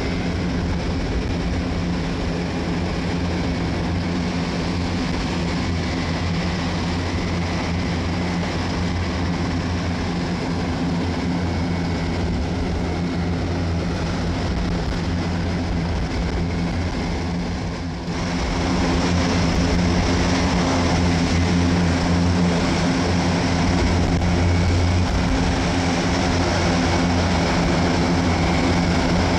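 Airbus A400M Atlas's four turboprop engines running with their eight-bladed propellers turning as the aircraft taxis, a steady deep drone with a low hum. About two-thirds of the way through the drone jumps louder.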